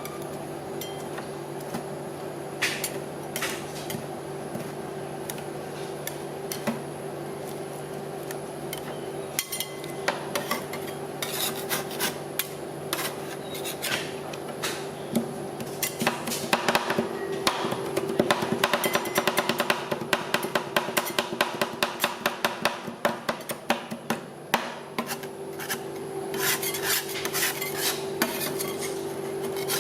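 Metal spatulas scraping and chopping on a rolled-ice-cream cold plate, with a fast run of chopping strikes in the middle. A steady hum from the freezing plate's machine runs underneath.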